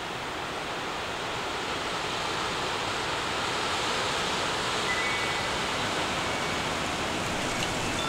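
Wind gusting outdoors: a steady rushing noise that grows louder over the first few seconds, with a faint chime tone or two near the end.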